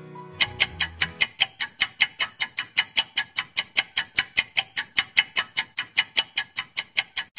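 Clock-ticking sound effect for a countdown timer: rapid, evenly spaced ticks, several a second, starting about half a second in.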